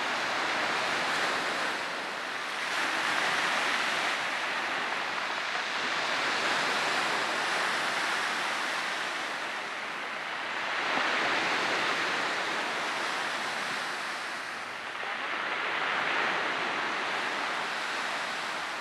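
Sea surf breaking on a rocky shore: a steady rushing noise that swells and eases every four or five seconds.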